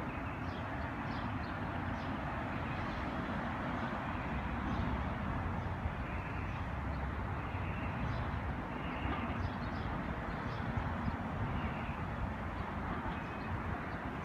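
Outdoor street ambience: a steady low rumble and hiss, with frequent short, high bird chirps throughout.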